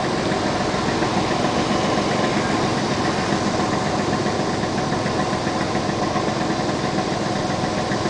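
Vehicle engine idling steadily while stopped at a red light.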